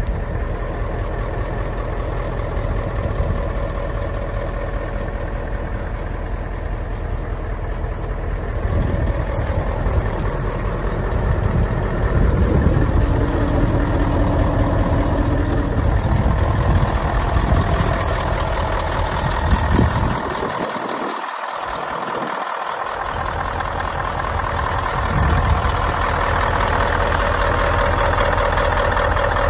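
Mercedes-Benz O 404 coach's 380 hp diesel engine idling steadily, a little louder near the end.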